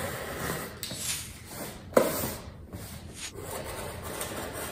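A box cutter scraping and slicing along the packing tape on a cardboard box, the blade rubbing against the cardboard. A sharp knock about two seconds in.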